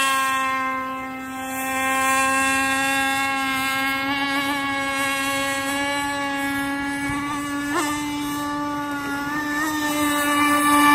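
AquaCraft Lazer RC boat's two-stroke gasoline engine running flat out as the boat speeds across the water, a steady high-pitched buzzing drone. It fades a little about a second in as the boat runs away and grows louder near the end as it comes back close.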